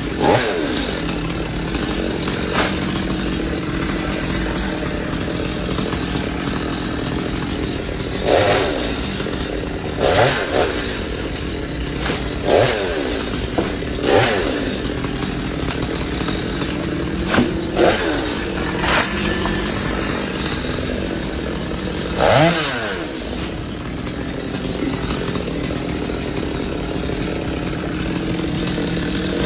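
Chainsaw engine running steadily, its pitch dipping and rising again about eight times as it is revved and loaded.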